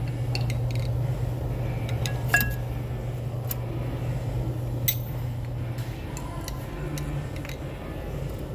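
Metal tools and brake parts clinking and tapping against each other, several separate sharp clinks, over a steady low hum that fades about six seconds in.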